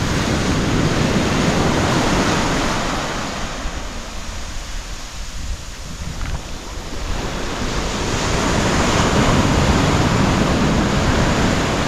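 Sea surf breaking and washing up over the sand at the waterline, an even rushing hiss that eases off about halfway through and swells again as the next wave comes in.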